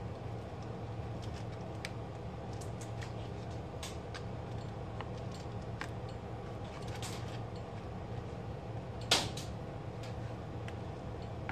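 Plastic slotted spatula and fork scraping and tapping on a foil-lined baking tray while turning baked fish, in scattered light strokes with one sharper clack about nine seconds in. A steady low hum runs underneath.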